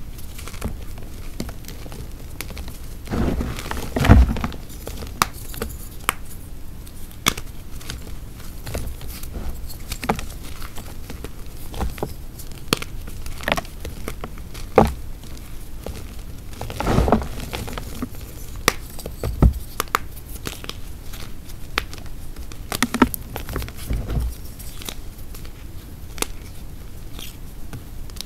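Hearts of dried gym chalk (Ader brand), made from only chalk and water, crumbling and crunching as they are crushed by hand: a running patter of small crackles with a few louder crunches spread through.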